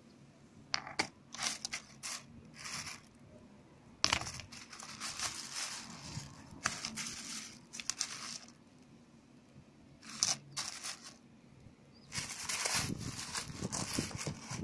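Plastic bags crinkling and rustling as a hand sorts through a heap of rough white stones, with the stones now and then clicking against each other. It comes in several bouts with short pauses between them, and a longer stretch of rustling near the end.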